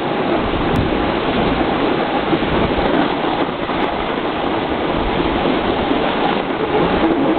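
Steady rushing noise of riding downhill on snow: wind buffeting the camcorder's microphone, mixed with the scrape of a snowboard sliding over packed snow.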